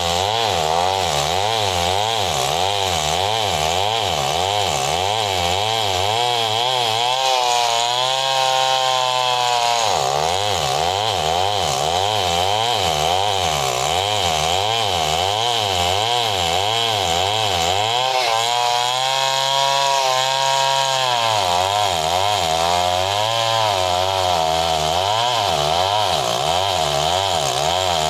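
Two-stroke chainsaw cutting lengthwise along a squared log, running loud and continuous. Its engine pitch wavers up and down over and over as the bar works in the cut, with steadier stretches about eight seconds in and again around nineteen seconds.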